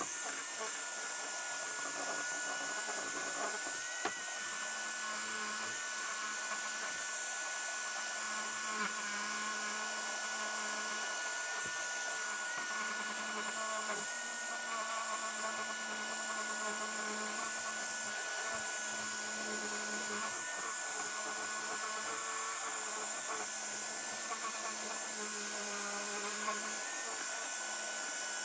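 DeWalt 5-inch electric sander running steadily with 100-grit paper, its dust shroud hooked to a vacuum that runs alongside. A steady motor whine that wavers slightly in pitch.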